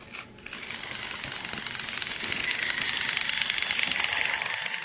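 Battery-powered toy Thomas the Tank Engine switched on with a click, then its small electric motor and gears running with a steady, high buzzing rattle that grows a little louder.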